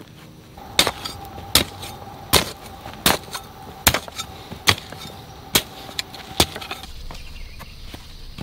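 Long-handled garden hoe chopping down into hard clay soil to dig a planting hole: eight sharp strikes at an even pace, a little over one a second, stopping near the end.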